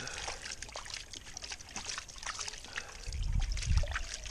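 Water trickling and pouring during a highbanker sluice clean-up, with many small clicks and knocks throughout. A low rumble comes in about three seconds in.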